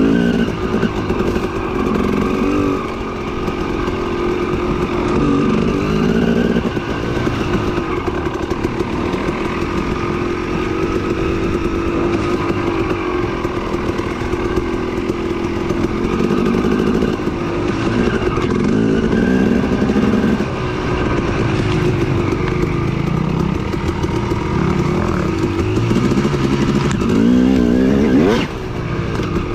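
Yamaha WR450F dirt bike's single-cylinder four-stroke engine running under a trail rider, its revs rising and falling continually, with a quick rev up near the end.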